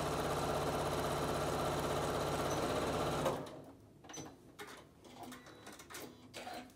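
Electric sewing machine running at a steady speed, stitching a straight-stitch seam, then stopping abruptly about halfway through. Faint clicks and handling noises follow as the work is finished off at the machine.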